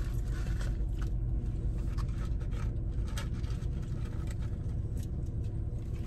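Steady low hum of a car heard from inside the cabin, with faint, scattered rustles and clicks of people handling fries and paper food packaging.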